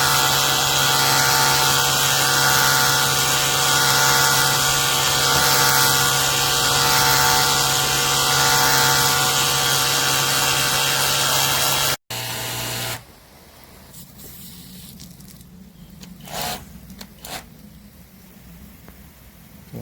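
Cordless pressure washer running steadily, a constant motor-and-pump hum under a strong hiss, which cuts off suddenly about twelve seconds in. A much quieter stretch follows, with a couple of brief sounds.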